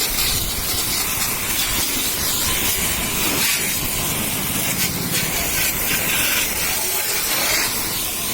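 High-pressure water jet spraying onto a scooter during a wash: a steady hiss.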